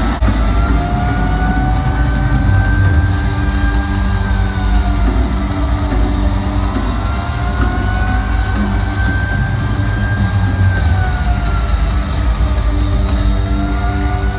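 Live rock band playing loudly, with heavy drums and a thick, steady low end. Long held tones slide slowly up and down over it.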